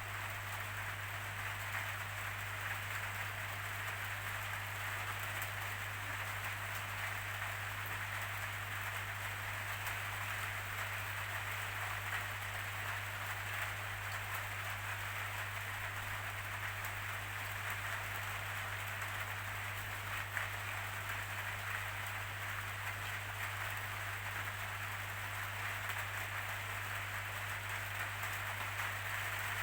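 Steady rainfall: an even hiss of rain with faint patter of drops, unchanging throughout, over a steady low hum.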